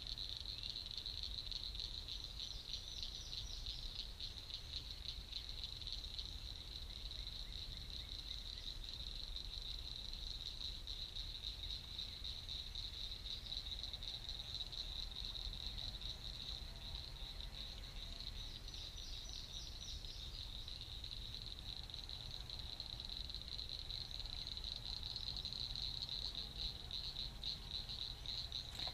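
Steady chorus of calling insects: one continuous high-pitched trill.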